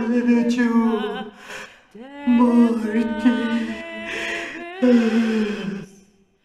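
Wordless lament by a single voice: long held notes that slide up or down into pitch, broken by short pauses for breath, stopping about six seconds in.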